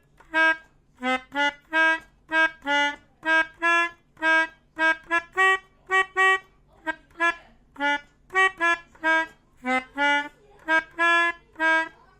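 Telolet multi-tone horn playing a sholawat melody note by note. It gives short separate honks that step up and down between a few pitches, about two a second.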